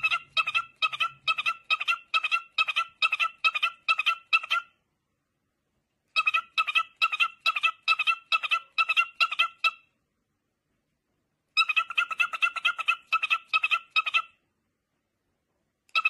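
Cockatiel chirping in quick runs of short, evenly spaced calls, about three a second, in three bouts of a few seconds each, each bout cutting off abruptly.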